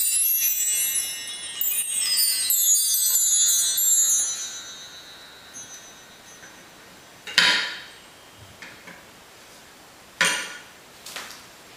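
Tree chime (bar chimes, 18 bars on a stand) swept with a striker: runs of bright, high ringing tones one after another, a second sweep about 1.5 s in, the ringing dying away over a few seconds. Later, two short sharp knocks, about three seconds apart.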